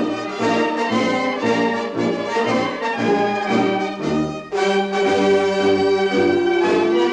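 Orchestral music led by brass, playing a melody of short notes and then a long held note in the second half.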